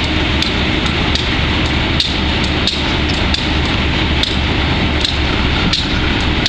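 GE B30-7 diesel locomotive's 12-cylinder engine running with a steady low rumble and sharp knocks about twice a second, slightly uneven. This is the sound of a locomotive with bad fuel injectors.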